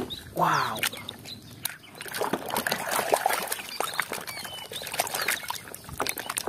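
Muddy water sloshing and splashing in a plastic basin as a plastic toy cement mixer truck is swished through it by hand, with many small irregular splashes and clicks.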